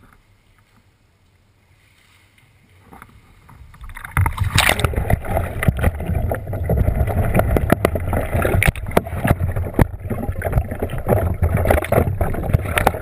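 Water splashing and churning around a kayak in a swimming pool, starting suddenly and loudly about four seconds in and continuing as a dense, irregular sloshing with a deep rumble under it.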